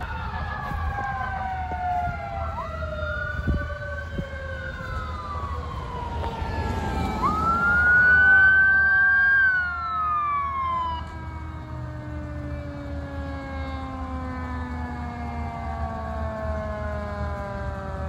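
Fire apparatus sirens: a mechanical Q siren winding down in long, slowly falling tones, while an electronic siren rises sharply, holds and falls away twice, loudest about eight seconds in, over a steady low engine and road rumble.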